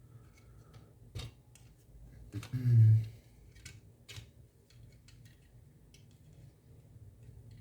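Small clicks and taps of plastic controller parts and tools being handled, with a short low voiced sound, like a hum or grunt, about three seconds in.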